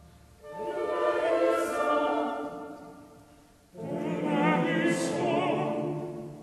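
Classical vocal music used as a soundtrack: singing in two phrases, the first coming in about half a second in and fading away, the second entering sharply just before four seconds in with a wavering pitch.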